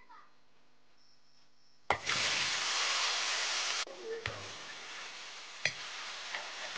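Pumpkin slices and meat stir-frying in hot oil in an iron wok. A loud sizzle starts suddenly about two seconds in and eases after about two seconds into steadier frying, with a metal spatula knocking and scraping against the wok a few times.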